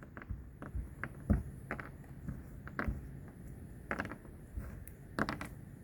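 Pecan shells being broken up by hand: a dozen or so short, dry cracks and clicks at irregular intervals, a few coming in quick clusters near the end.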